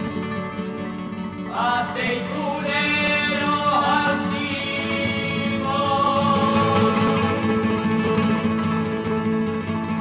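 Flamenco-style music: guitar playing, with a solo singing voice coming in about a second and a half in and winding through long, ornamented notes.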